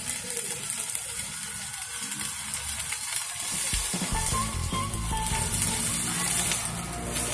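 Stick-welding arc crackling and sizzling steadily as an electrode burns along a steel plate, fed by a 200 amp single-phase welding machine. A low rumble joins about four seconds in.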